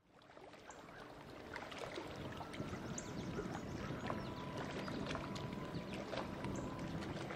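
Small waves lapping and splashing against a lake shore, a steady wash full of little irregular splashes that fades in over the first two seconds.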